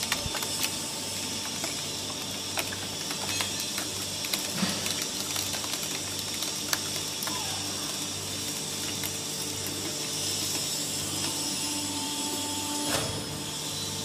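ENERPAT two-ram automatic can baler running: a steady hum from its hydraulic power unit, with light scattered clicks. Near the end there is a knock, and the tone of the hum shifts.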